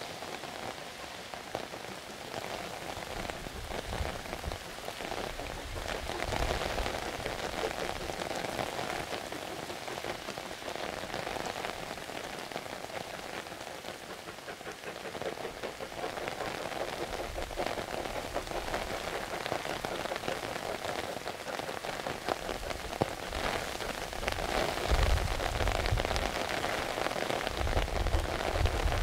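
Steady rain falling. Under it, the C12 66 steam tank locomotive works hard uphill, its exhaust growing louder and deeper over the last few seconds as it draws near.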